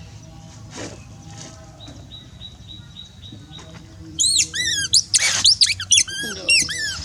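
Pet monkey squeaking: a quick run of short, high-pitched squeaks starting about four seconds in, each rising and falling, with a harsher squeal in the middle.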